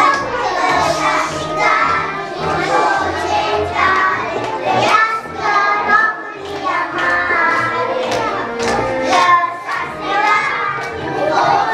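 Young children singing a song together over accompanying music with a steady beat.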